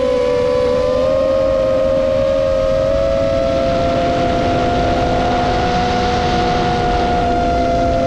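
Roma F4 LR FPV quadcopter's brushless motors and propellers whining in flight, heard as two close steady tones, one gliding slightly higher about a second in and then holding, over a constant rushing noise.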